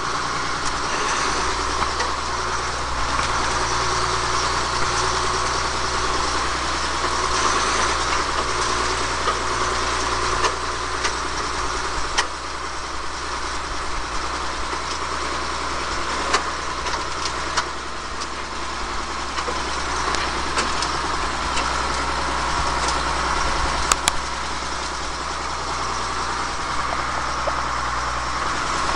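Tractor engine running steadily, driving a feed mixer, with a few light clicks.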